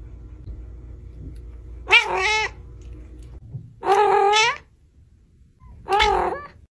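Domestic cat meowing three times, each meow rising then falling in pitch, the middle one the longest.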